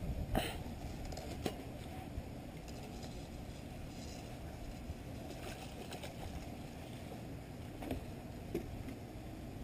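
Steady low wind rumble on the microphone, with a few sharp clicks and knocks, the loudest about half a second in.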